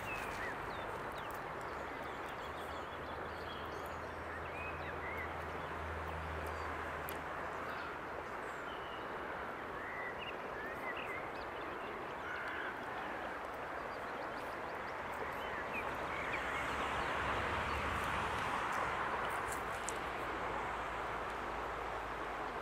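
Outdoor woodland ambience: a steady background hiss with faint, scattered bird calls. The hiss swells a little near the end.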